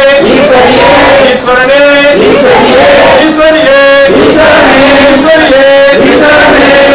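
Men singing a devotional chant in drawn-out phrases with held notes.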